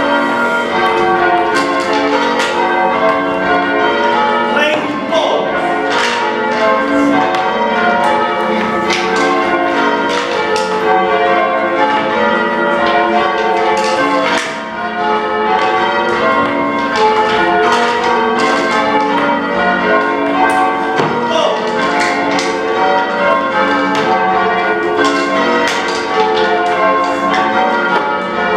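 Change ringing on a ring of five old church bells (tenor about 13 cwt in F, the oldest cast in the early 1400s), struck one after another in a steady, unbroken run of changes with their tones overlapping.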